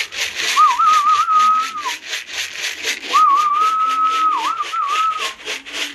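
A person whistling a warbling call in two long phrases to coax a racing pigeon down off the loft roof and inside, over a fast, even rattle.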